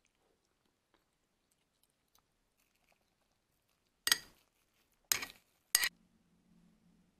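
A metal spoon scraping against the inside of an earthenware ttukbaegi pot three times about a second apart, starting about four seconds in, prying up the browned crust of steamed egg stuck to the wall. A faint low hum comes in after the last scrape.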